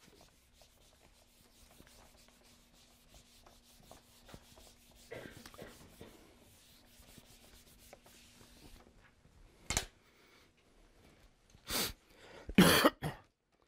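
Marker scratching across a whiteboard as words are written, in many short strokes, then a few short, louder knocks and rustles in the last few seconds.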